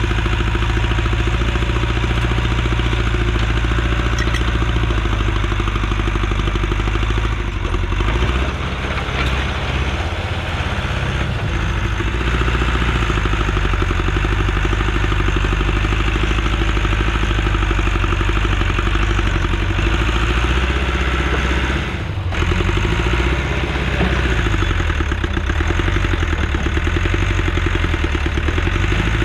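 Allis-Chalmers 655 crawler track loader's engine running under working load. The engine note shifts a few times, with a short dip about two thirds of the way through.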